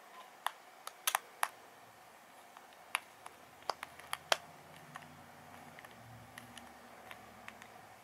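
A small screwdriver tightening a screw into the hard plastic leg joint of a toy robot T-rex: quiet, sharp clicks and ticks at irregular intervals.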